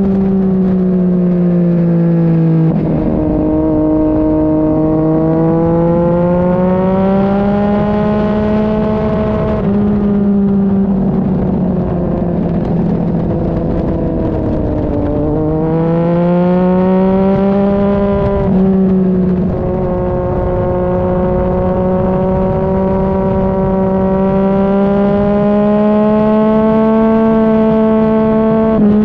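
Sport motorcycle's engine under hard riding on a race track. The engine note falls under braking and climbs under acceleration through the corners, with a few sudden steps in pitch at gear changes, over a steady rush of wind.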